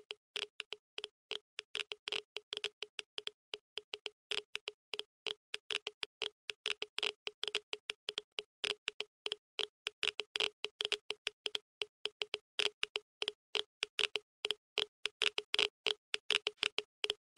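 Rapid, irregular sharp clicks, several a second, growing louder and denser toward the end.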